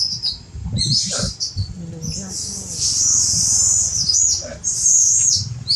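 Shrill, high-pitched animal calls, chirping in several bursts with a longer stretch about three seconds in.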